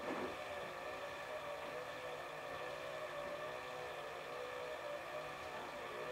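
Electrolux EWF9042R7WB front-loading washing machine running mid-cycle: its drum motor gives a steady whine whose pitch wavers slightly.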